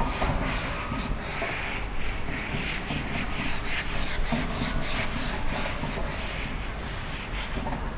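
Felt whiteboard eraser rubbing across a whiteboard in quick back-and-forth strokes, about two swishes a second, wiping off marker writing.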